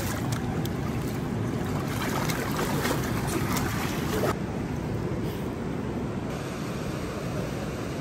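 Steady wash of ocean surf with wind buffeting the microphone. Over the first four seconds, light splashing of water in a swimming pool.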